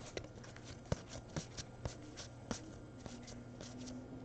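Trading cards being handled and flipped through by hand: faint, irregular soft clicks and slides of card against card.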